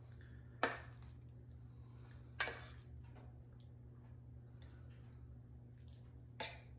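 A spoon scooping sauced spaghetti and tapping as it drops the spaghetti into pizza-crust cups in a muffin tin: three sharp taps, about half a second in, about two and a half seconds in, and near the end. A steady low hum runs underneath.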